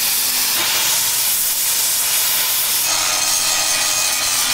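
Plasma cutter hissing as it cuts through a steel winch bracket. About three seconds in, an angle grinder's steady whine joins the hiss as the cut piece is ground.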